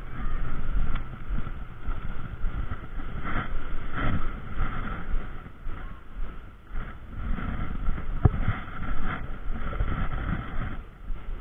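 Wind buffeting a body-worn camera's microphone, a low gusting noise that swells and drops, with a fainter steady hiss above it.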